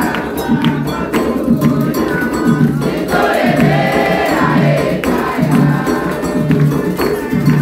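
A group singing a Candomblé chant in call-and-response fashion, with hand drums and percussion keeping a steady rhythm under the voices.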